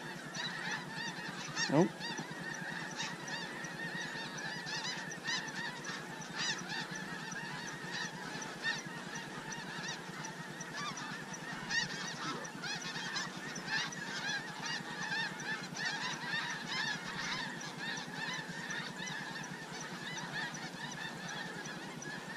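A large flock of snow geese calling overhead: a dense, continuous chatter of short, high-pitched honks and yelps.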